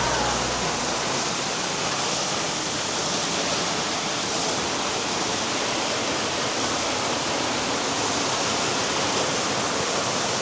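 Waterfall close up: a steady, unbroken rush of falling water.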